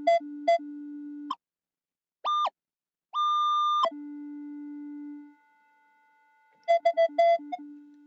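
Minelab Equinox 800 metal detector giving target tones as the coil sweeps. Choppy mid-pitched beeps mix with low tones at first. A short high beep comes about two seconds in, then a longer, clean high tone, a held low tone, and another quick burst of choppy beeps near the end.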